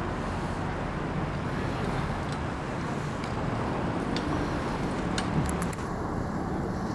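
Steady city traffic noise, with a few faint clicks.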